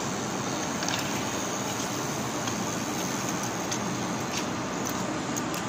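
Steady outdoor rushing noise of an open city plaza, with a few faint clicks scattered through it.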